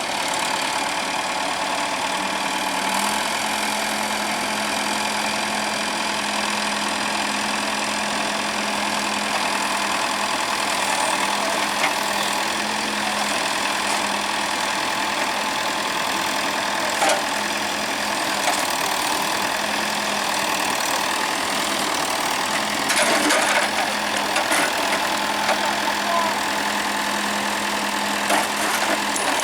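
Diesel engine of heavy machinery running steadily, its pitch stepping up slightly about three seconds in, with a few short knocks and clatters and a cluster of them a little past the two-thirds mark.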